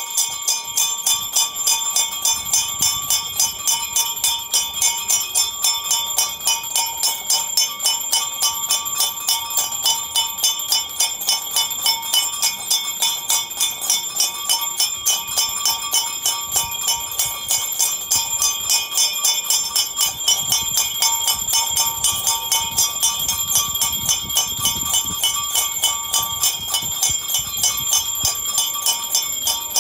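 Temple bell rung rapidly and steadily: a continuous metallic ringing that pulses in a fast, even beat.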